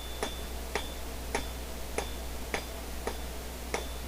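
Blacksmith's hand hammer striking hot 1/2-inch round steel bar on an anvil, drawing out a point. The blows come in a steady rhythm, a little under two a second, each with a brief ring.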